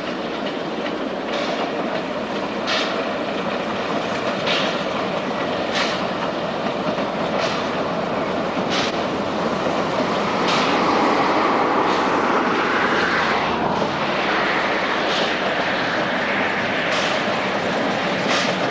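Narrow-gauge steam locomotive, the U47 Mallet tank engine, hauling a short passenger train, working hard with a continuous rush of noise and sharp beats about every second and a half. It gets louder about ten seconds in as it nears.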